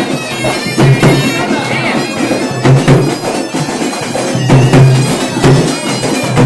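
Loud traditional music: a reedy wind instrument plays a sustained, buzzing melody over drum strokes.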